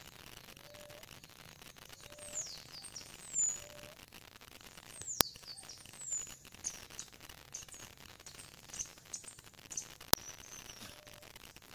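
Wild birds chirping with quick high falling whistles, over a soft low note that repeats about every second and a half. Two sharp clicks, one about five seconds in and one near the end, are briefly the loudest sounds.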